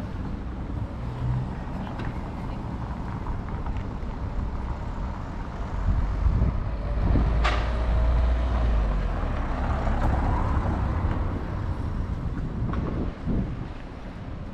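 Street traffic noise, with a car driving past about halfway through. Its low engine and tyre rumble swells for a few seconds and is the loudest sound. A single sharp click comes as it passes.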